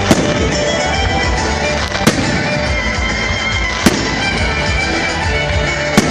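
Fireworks display: four sharp shell bursts about two seconds apart, over music that plays throughout.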